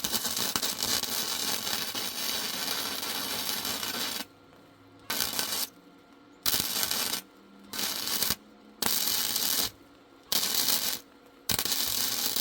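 MIG welder laying weld on a steel gate frame, a steady crackling hiss. It runs as one bead for about four seconds, then as about six short stitch welds of under a second each, with gaps between them.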